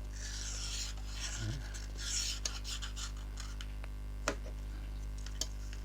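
Old screen adhesive being scraped off a Redmi 9C phone's frame: two rasping scraping strokes in the first couple of seconds, then a few sharp clicks.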